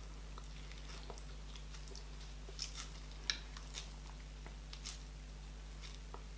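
Close-miked eating sounds: scattered short, wet mouth clicks and chewing, together with the sticky sound of fingers pulling a piece off a ball of garri fufu (eba). The clicks are most frequent and loudest in the middle.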